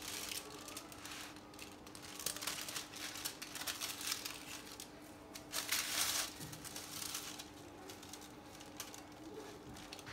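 Butter paper crinkling and rustling as it is folded around a filled shawarma wrap, in a few short bursts, the loudest about a second and a half in and around six seconds in.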